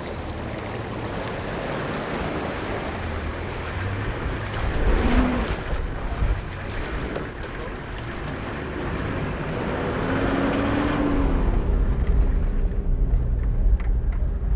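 Wind buffeting the microphone over a steady low rumble, with two short, faint hums about five and ten seconds in.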